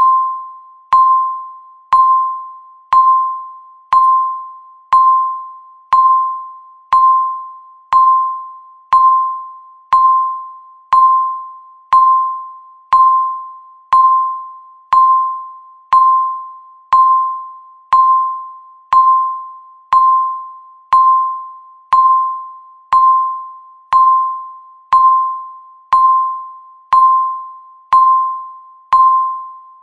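Countdown timer beeping once a second, one beep for each second left. Each beep is a single mid-pitched electronic tone that starts sharply and fades quickly.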